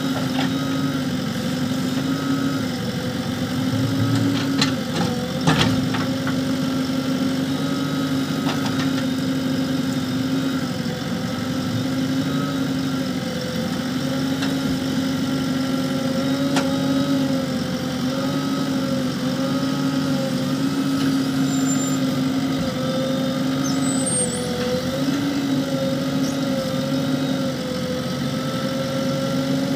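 JCB backhoe loader's diesel engine running steadily while the backhoe arm digs, its note dipping and recovering again and again as the hydraulics take load. A few short knocks come through, the loudest about five seconds in, as the bucket works the soil and stone.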